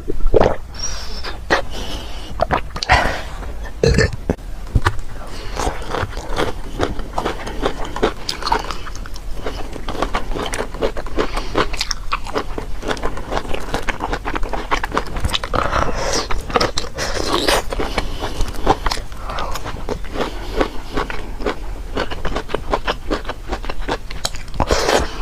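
Close-up crunchy biting and chewing of food, with a dense, irregular run of crackles and crunches.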